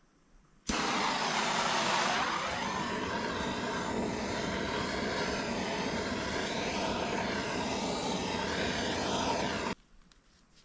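Power saw cutting through the water line pipe, running steadily for about nine seconds with an abrupt start and stop.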